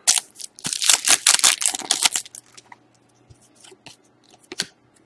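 A hockey card pack wrapper being torn open with a quick run of loud ripping and crinkling, then lighter scattered rustles and clicks as the cards are handled.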